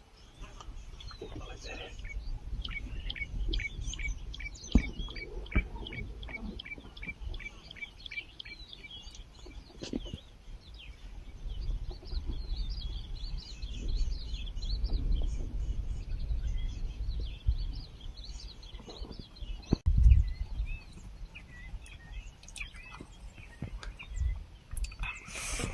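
Wild birds calling: a quick run of evenly repeated high notes, then scattered chirps, over a low rumble with a few thumps.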